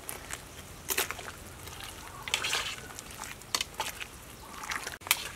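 A spoon stirring a pot of fish soup: liquid sloshing, with a few short knocks and splashes at irregular intervals as the seasoning is mixed in.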